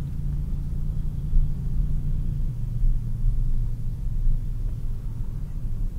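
Car's engine and road rumble heard from inside the cabin while driving, a low steady rumble whose engine note drops a little about halfway through.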